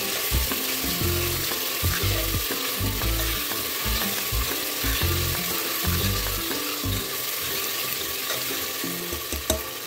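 Chopped onion, tomato and ginger-garlic paste sizzling in hot oil in a pressure cooker, stirred with a spatula that knocks and scrapes irregularly against the pot.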